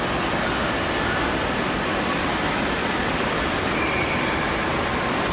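Indoor wave pool surf: waves breaking and water churning in a steady rushing noise.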